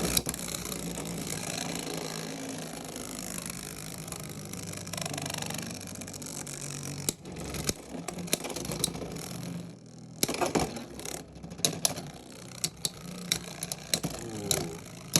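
Beyblade X spinning tops whirring and grinding against each other and the plastic stadium floor, then a rapid run of sharp plastic clacks in the second half as they collide and rattle.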